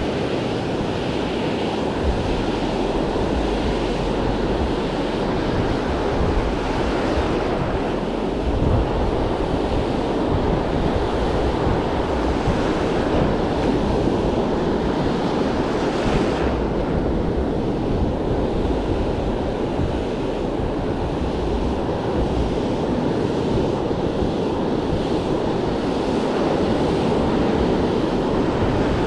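Ocean surf washing and breaking on the beach, a steady rushing noise, with wind buffeting the microphone.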